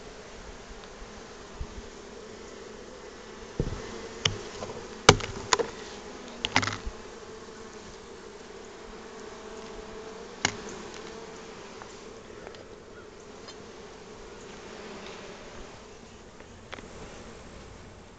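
Honeybees buzzing around an open hive, a steady hum. Several sharp clicks and knocks in the first half, the loudest between about four and seven seconds in and one more near ten seconds, from a plastic small hive beetle trap being handled on the hive.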